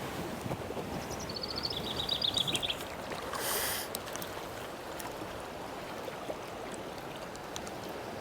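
Steady rush of river water flowing. A little over a second in, a bird gives a brief trill that steps down in pitch, and a short hiss comes about three and a half seconds in.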